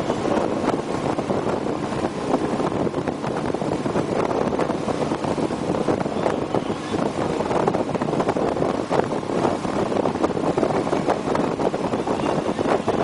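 Motorboat under way at speed: its engine and churning wake make a steady noise, with wind buffeting the microphone.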